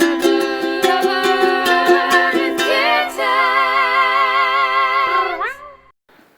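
Short music opening: a ukulele strummed in quick chords, then a long held note sung with vibrato that slides upward and cuts off sharply.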